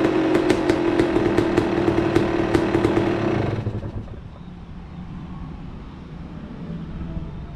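Yamaha YZ250's single-cylinder two-stroke engine running at a steady idle with regular sharp ticks, then cutting off about three and a half seconds in.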